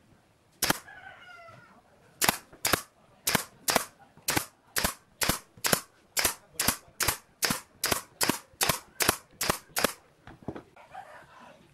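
Pneumatic brad nailer driving nails into wooden boards: one sharp shot, then after a pause a steady run of about twenty shots, roughly two or three a second.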